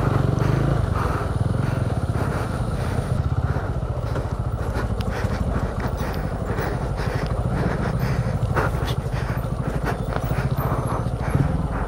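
Motorcycle engine running steadily as the bike rides a rough dirt trail, with scattered knocks and rattles from the bike over the ground.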